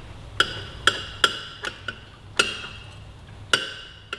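Irregular metallic clinks, about eight in four seconds, some ringing on briefly, from a stainless steel motorcycle exhaust header and its spring-joined mid pipe knocking against the mounting as the downpipes are wiggled up into the spigots.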